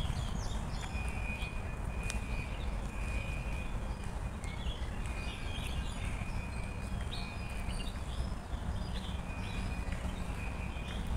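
Footsteps on a paved park path with birds chirping, over a steady low rumble. A thin, steady high note comes and goes every few seconds.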